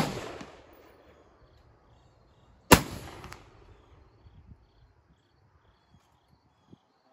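Two black-powder shots from a .71-calibre Austrian M1849 Kammerbuchse muzzleloading rifle, one at the very start and one nearly three seconds later. Each is a sharp crack followed by a long echo that dies away over about a second.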